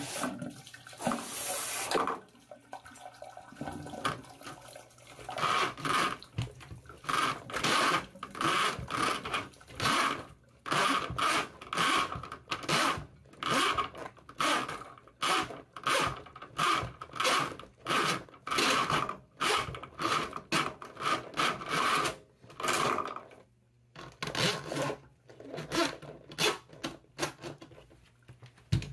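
Ryobi 25 ft drain snake's steel cable being worked back out of a clogged PVC AC condensate drain line: repeated short bursts of sound, about two a second, with a short pause near the end.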